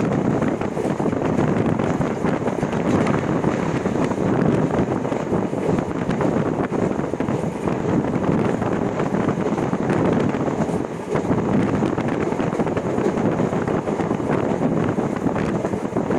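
Steady rush of wind buffeting the microphone at a moving train's window, mixed with the train's even running noise.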